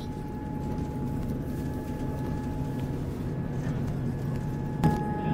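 Train running along the track: a steady low rumble with a constant whine above it, and a single sharp knock about five seconds in.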